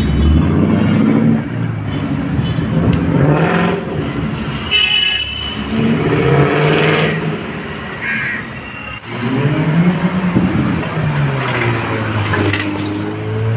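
Car engines running in slow rally traffic, with a car horn honking briefly about five seconds in. Near the end an engine revs up and back down.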